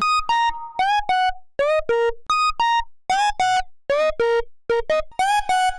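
Synthesized organ-like tone built from stacked sine waves (a fundamental with added octaves and a fifth) playing a short melody of separate notes, about two to three a second, some sliding up into pitch. Reverb is on it.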